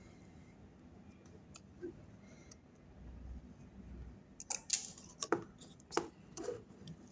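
Several seconds of near quiet, then about five sharp clicks and knocks from a circuit board and tools being handled and turned over on the bench.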